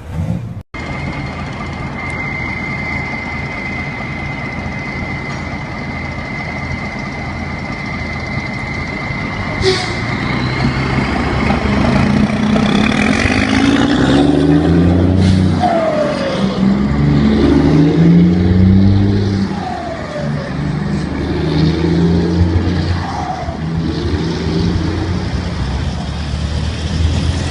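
Iveco truck's turbo diesel engine with a comb fitted in the turbo intake. A steady high whistle runs for the first third, then the engine pulls through several gears, its pitch climbing and dropping at each shift, with short falling chirps between shifts.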